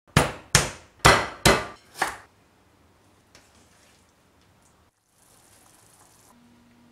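A stone pestle pounding green bird's eye chillies on a wooden chopping board: five heavy knocks in about two seconds, then only faint quiet sounds.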